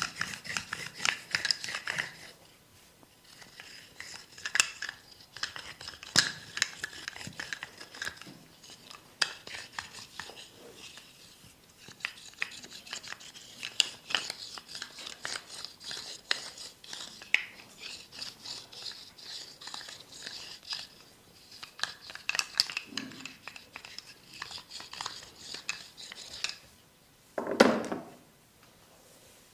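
Close-miked massage sounds: hands rubbing and tapping over skin and hair in a dense run of crisp rustles and clicks, with one louder, fuller thump near the end.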